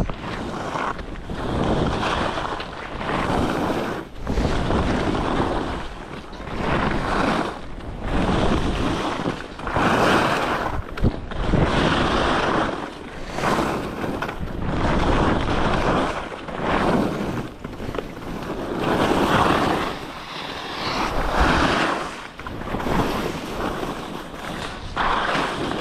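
Head alpine skis carving turns down a churned snowy piste, the edges scraping through the snow in a rush that swells and fades with each turn, about every one and a half to two seconds, with wind buffeting the microphone.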